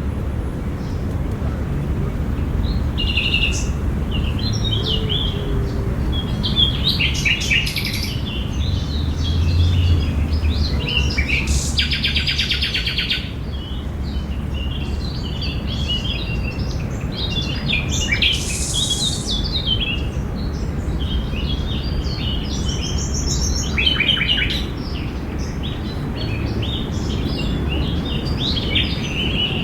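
Several small birds chirping and calling in short bursts and trills, over a steady low rumble.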